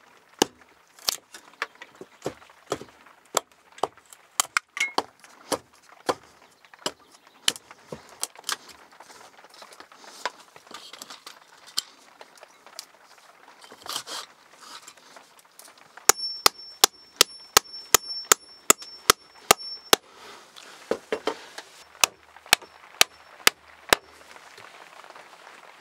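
A metal hand tool knocking on a wooden log post: scattered taps at first, then an even run of about a dozen sharp, ringing strikes at roughly three a second, and a few more strikes after a short pause.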